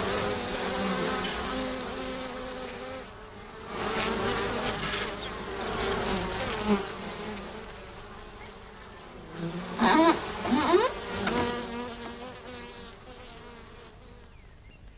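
Swarm of bees buzzing, swelling and dipping several times with a few quick rising whines about ten seconds in, then fading away toward the end.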